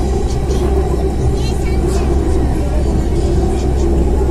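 Delhi Metro train running along elevated track, heard from inside the carriage: a steady rumble of wheels and traction motors.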